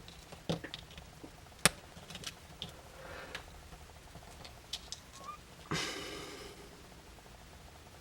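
Small clicks and taps of tools and small plastic and metal camera parts being handled while a compact camera's lens assembly is taken apart, with one sharp click about 1.7 seconds in and a brief scraping rustle about six seconds in.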